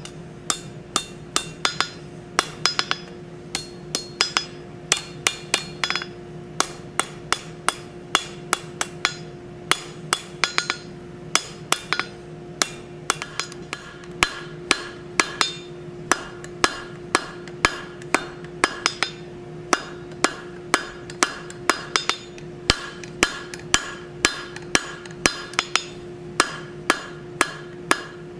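Hand hammer striking a red-hot steel bar on an anvil as it is drawn out, in a steady rhythm of about two to three blows a second, each with a short metallic ring. A steady hum runs underneath.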